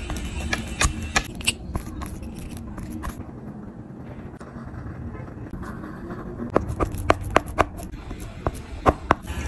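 Palette knife and oil pastel stick tapping and scraping on heavily worked oil pastel on paper: a run of sharp irregular taps, coming thicker near the end.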